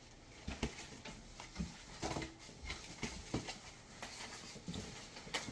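Scattered light knocks, taps and rustles of a boxed set of glasses and its cardboard packaging being handled.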